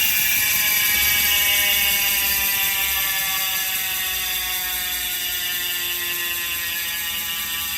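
Roval Rapid CLX wheel's freehub buzzing as the spun wheel coasts, its ratchet clicking so fast it sounds like one tone. The pitch slowly falls and the sound gets slightly quieter as the wheel slows.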